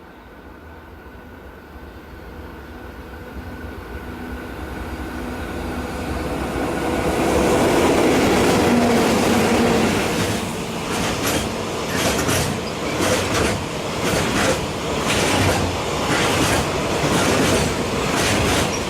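A train approaching and passing close by. Its rumble builds steadily for several seconds, then its wheels clack over the rail joints in a quick, regular series.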